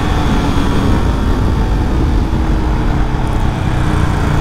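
Yamaha R15 V4's single-cylinder engine running as the bike is ridden and eased off after a full-throttle run. Heavy wind rush covers the microphone, and the engine note drops lower near the end.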